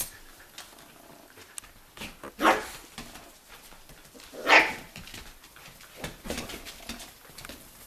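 Whoodle (wheaten terrier–poodle cross) puppies barking as they play: two louder short barks about two and a half and four and a half seconds in, with fainter yips between.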